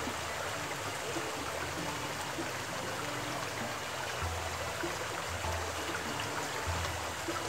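Small mountain stream flowing steadily: a constant rush of water over stones.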